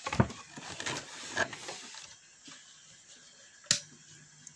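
Handling rustles and small knocks, then a single sharp click about three and a half seconds in as the Microlab Solo 1 powered speaker is switched on. No loud hum follows, only a faint steady background: the mains hum is gone now that the swollen capacitor that had lost its capacitance has been replaced.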